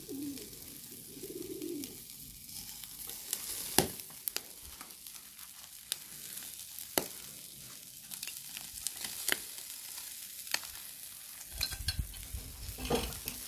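Chicken drumsticks sizzling on a hot charcoal kettle grill, with sharp irregular clicks of metal tongs and a fork against the grate as the pieces are turned.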